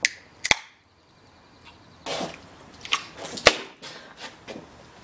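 Two aluminium drink cans having their ring-pull tabs cracked open for shotgunning, two sharp clicks half a second apart. From about two seconds in, noisy gulping and spluttering as the drink is downed, with a sharp cough about three and a half seconds in.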